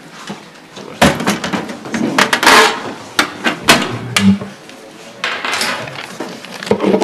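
Paper ballot envelopes being handled and opened close to a table microphone: loud crinkling and rustling with several sharp knocks, beginning about a second in.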